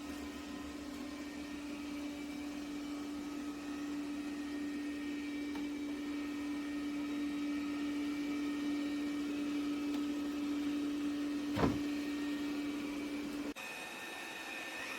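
Roborock Qrevo Curv S5X robot vacuum running with a steady hum, with a short knock about twelve seconds in. Near the end the sound cuts abruptly to a quieter, higher whine.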